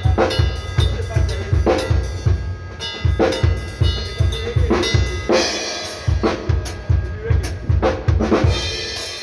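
Drum kit played in a busy beat: kick drum hitting several times a second under snare strokes, with cymbals washing out around the middle and near the end.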